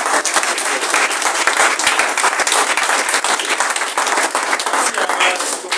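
A small group applauding: many hands clapping together steadily, dying away near the end.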